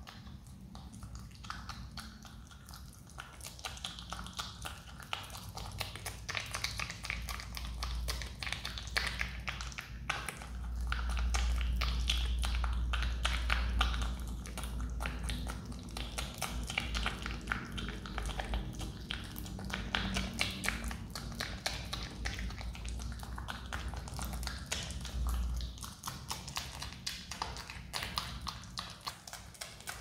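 A Himalayan marmot chewing and biting into a banana close up: a fast, continuous run of small clicking chews.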